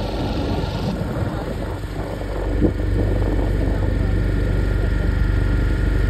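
Motorboat engine running with a steady low drone, growing a little louder about three seconds in, over the rush of lake water along the hull.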